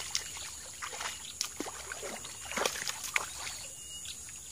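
Irregular short splashes and sloshes at the water surface, where a snakehead strikes and thrashes on a soft-frog lure.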